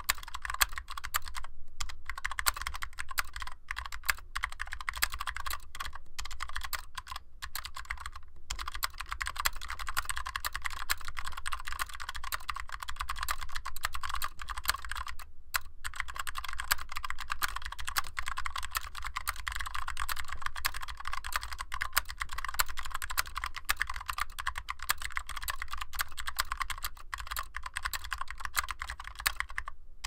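Fast, continuous typing on a 60% mechanical keyboard with clicky blue Alps SKCM switches, DCS-profile keycaps and an aluminium case: a dense stream of sharp key clicks, broken by a few brief pauses.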